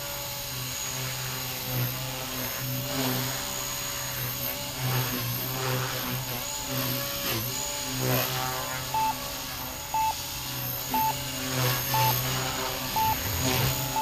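Blade Fusion 180 electric RC helicopter in flight, its motor and rotor blades whining steadily and the pitch and level rising and falling as it manoeuvres. From about nine seconds in, a short electronic beep repeats about once a second.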